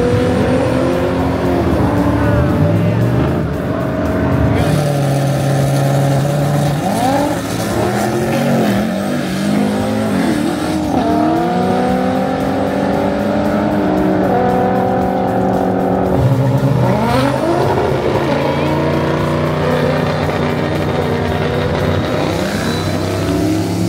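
Drag-racing car engines running and revving, with pitch rising slowly over a few seconds at a time, mixed with music.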